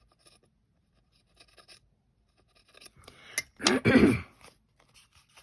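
A tool is pushed through a decoupaged ornament to make a hole. Light scratching and tapping give way to a loud creaking, scraping crunch about three and a half to four seconds in.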